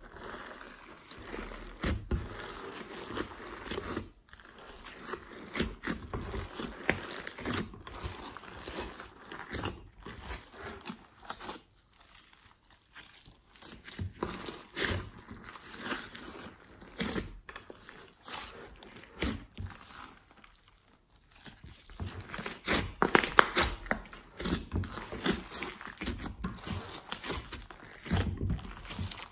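Hands kneading and stretching glossy slime mixed with clay, giving dense irregular sticky clicks. It eases off twice, and the clicking is loudest a few seconds before the end.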